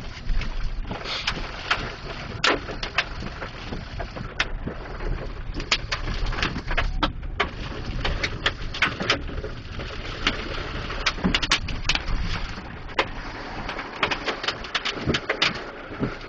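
Hailstones hitting a car in many sharp, irregular knocks, over a steady rush of heavy rain and strong wind.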